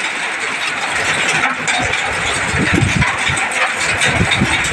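Hail and heavy rain pelting down, a dense steady hiss and patter of countless small impacts on the ground and nearby surfaces. Low gusts of storm wind rumble against the microphone from about two seconds in until near the end.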